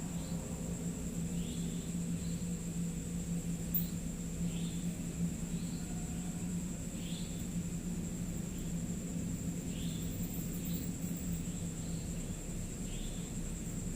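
Night ambience: short insect chirps about once a second over a steady high-pitched whine and a low steady hum.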